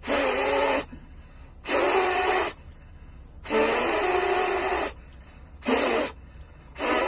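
Hard breaths blown out through a three-ply disposable face mask at a lighter flame held against it, a test of how much air gets through. Five forceful blows about every second and a half, each a breathy rush with a low hum in it.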